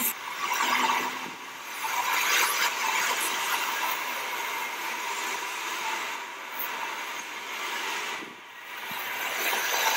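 Street traffic noise: cars passing along the road, a hiss that swells and fades as each one goes by.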